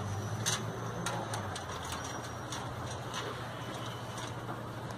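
Chain-link fence mesh clinking and rattling in short, irregular clicks as a tension bar is worked down through it. A steady low engine hum runs underneath.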